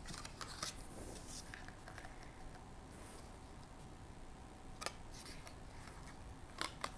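Stiff card flaps of a lift-the-flap book being opened and folded back, with soft paper rustles and a few light taps. A sharper pair of flicks comes near the end.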